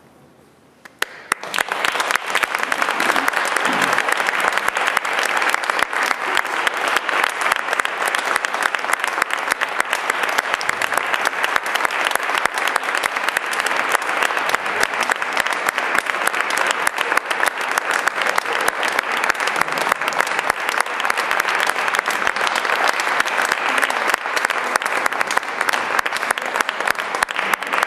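Audience applauding. It starts after a brief lull about a second in, then goes on steadily.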